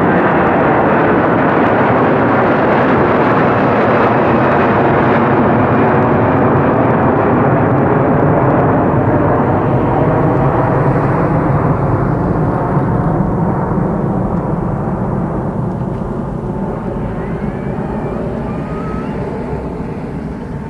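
Airbus A330-300 airliner's Rolls-Royce Trent 700 turbofans at takeoff thrust: a loud jet roar with slowly falling tones as the aircraft passes and climbs away, fading gradually over the second half.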